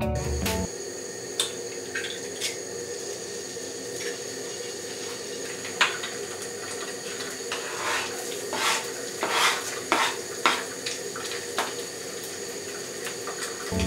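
An egg cracked and dropped into a white-coated frying pan, then chopped garlic scraped off a plastic cutting board into the pan with a knife: scattered knocks, clicks and scrapes, busiest between about eight and eleven seconds, over a steady background hum.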